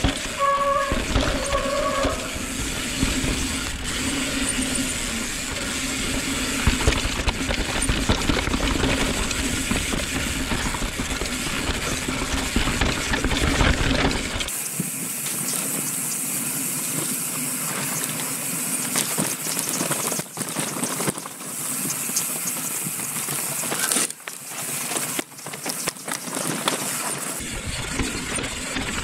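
A mountain bike descending a rocky dirt trail: tyres rolling and crunching over loose dirt and stones, with the bike rattling and wind noise on a helmet or bar-mounted action camera. The deep rumble drops away about halfway through and comes back near the end.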